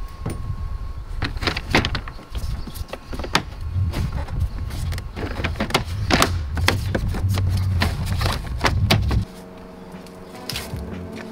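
Hard plastic cowl trim panel being set over a Tesla Model 3's 12V battery bay and pressed down along its length: a quick series of clicks, knocks and snaps of its clips over a low rumble. Background music starts about nine seconds in.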